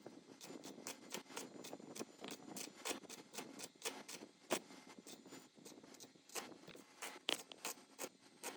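Hand tool work on small metal parts: an irregular run of light clicks and scrapes, several a second, with a few sharper ticks.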